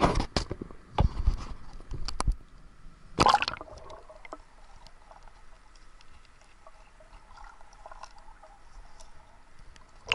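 A swimmer splashing at the surface of a river, several sharp splashes in the first three and a half seconds, the last and loudest as he goes under. After that comes the quieter sound of being underwater, a low steady ambience with faint scattered clicks.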